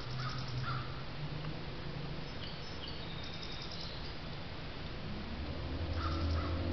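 Crows cawing: a quick series of short harsh calls at the start and more from about six seconds in, over a low steady hum that grows louder near the end.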